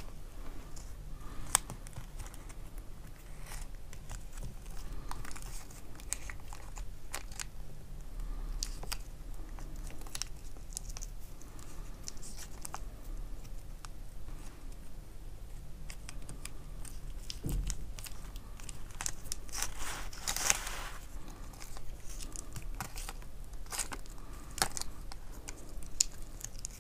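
Construction tape being pulled off the roll and wrapped around beaded wire branches: quiet scattered clicks and rustles of handling, with one louder rip of tape about twenty seconds in.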